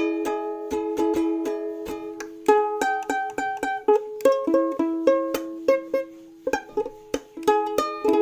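Background music: a plucked-string tune, ukulele-like, in a light steady rhythm.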